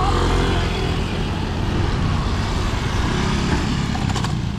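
Road traffic noise: a steady rumble of motor vehicles running nearby. A few quick clicks about four seconds in.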